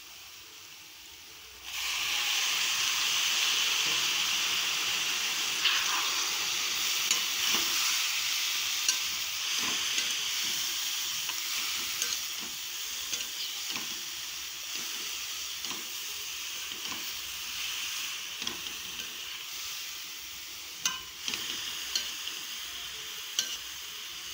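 Grated beetroot and onion sizzling in a metal pan, starting suddenly about two seconds in and running steadily after that, while a metal spoon stirs it with frequent scraping and knocks against the pan.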